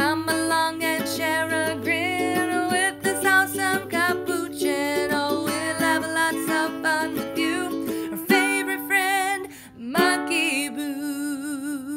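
A closing theme song: a voice singing over plucked strings, ending on a long held note with vibrato.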